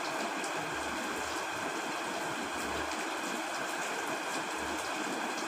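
Steady heavy rain: a constant even hiss with scattered droplet patter and a few soft low rumbles.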